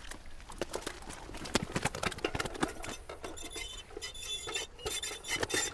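Fish being weighed, hung in a mesh weigh sling from dial scales on a metal tripod: quick clicks and rattles of net, metal and flapping fish. Thin high squeaks come in during the second half.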